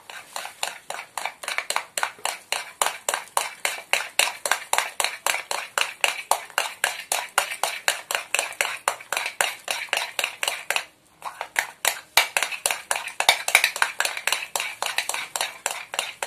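Thick yogurt and besan marinade being beaten vigorously in a glass bowl: a fast, even run of wet strokes against the glass, about five a second, with one brief pause about eleven seconds in.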